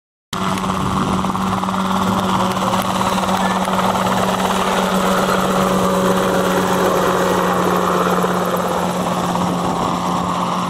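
Light single-seat helicopter flying low, its engine and rotor running steadily with a constant low drone. The sound cuts in suddenly just after the start.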